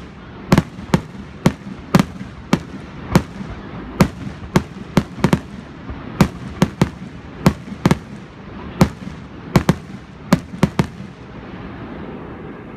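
Fireworks finale: aerial shells bursting in rapid succession, a sharp bang about twice a second, the barrage stopping near the end.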